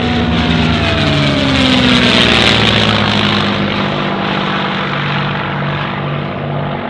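A Merlin V-12-engined WWII propeller fighter passing overhead: the engine note drops in pitch as it goes by, loudest about two to three seconds in, then settles to a steady note as the plane banks away.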